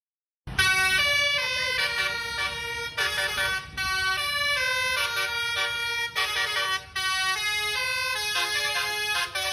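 Basuri telolet bus horn, a multi-trumpet horn, playing a tune of quick stepped notes that starts abruptly about half a second in, over a low background noise.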